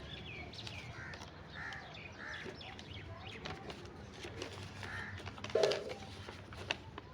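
Crows cawing in the background, a few separate calls, over light clicks and rustles of handling. A brief louder sound comes about five and a half seconds in.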